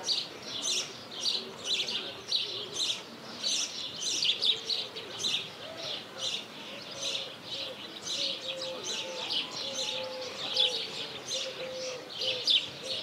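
Many small birds chirping busily in quick succession. From about halfway a faint low wavering tone runs underneath.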